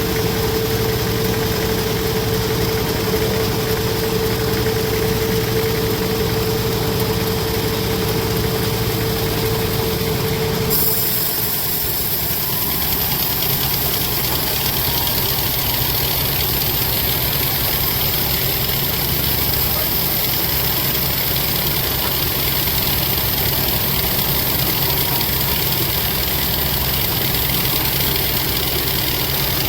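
Sawmill machinery running steadily, a continuous engine-like hum. A steady whine rides on it until the sound changes abruptly about ten seconds in; after that the hum goes on without the whine.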